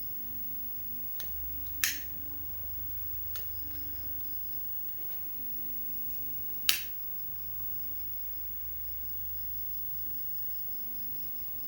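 Insects chirping in a steady pulsing trill, broken by two sharp clicks about two seconds in and again near seven seconds, with two fainter ticks between them.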